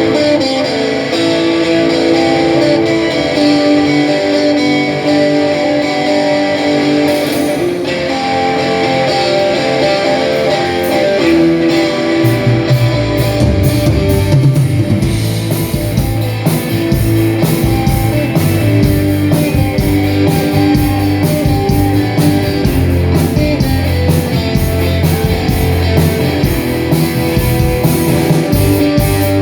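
Blues band playing live: a guitar opens the song with a riff, then bass and drums come in about twelve seconds in and the full band carries on.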